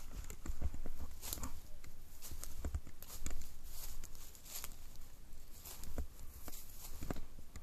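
Footsteps through dry fall leaves and brush: an irregular run of rustling, crackling steps with low thuds underneath.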